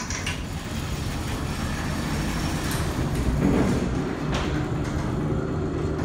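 Dover freight elevator setting off: a steady low rumble from the cab and its machinery, with a clunk about four seconds in.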